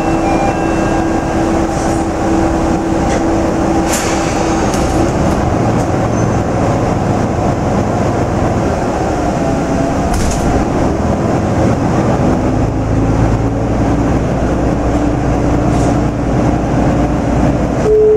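Interior sound of a Matsuura Railway MR-600 diesel railcar moving slowly. The diesel engine runs under the floor and the wheels roll on the rails, with a low rumble that grows stronger about halfway through.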